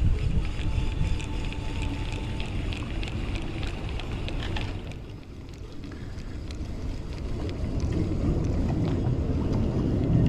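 Wind buffeting the microphone as a steady low rumble. Through roughly the first half there is faint rapid ticking from a spinning reel being wound in, which stops about five seconds in.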